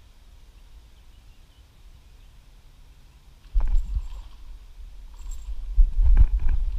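Quiet open-air ambience, then about three and a half seconds in a sudden loud low rumble of wind buffeting and handling noise on the microphone, with a few sharp clicks, swelling again near the end as the fishing rod is moved.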